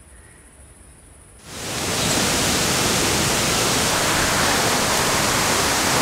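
A large waterfall rushing: a loud, steady, even noise that starts abruptly about a second and a half in, after a short quiet stretch.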